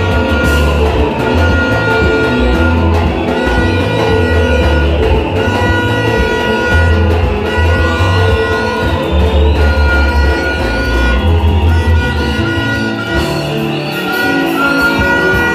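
Loud, upbeat band music with a heavy pulsing bass line, guitar and drums, and a held melody repeating in phrases.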